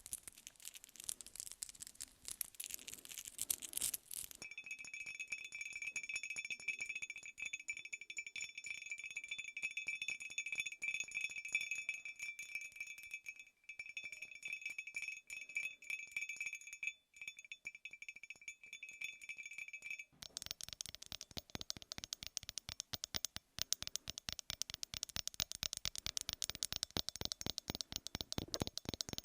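Close-miked ASMR trigger sounds. First comes a few seconds of dense crackling. Then a metallic chime-like jingle holds several steady high ringing tones over a fine rattle for about sixteen seconds, and about twenty seconds in it switches to fast, dense clicking and rattling.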